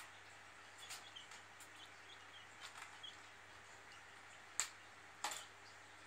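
Red-tailed black cockatoo's beak clicking on a plastic bucket lid: two sharp clicks in the second half, over faint, scattered high chirps.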